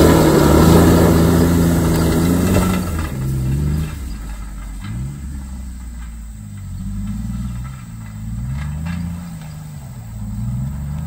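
A vehicle engine running loudly and steadily at first, then easing off, its pitch rising and falling again and again as it revs up and down.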